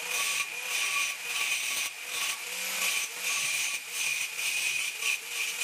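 Small angle grinder grinding a weld on a steel pipe, its disc whining steadily against the metal, with a few brief dips in loudness as it is eased off and pressed back in.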